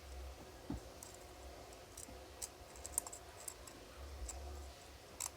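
Faint, irregular small clicks and light taps from small tools and phone parts being handled on a workbench, over a steady low hum.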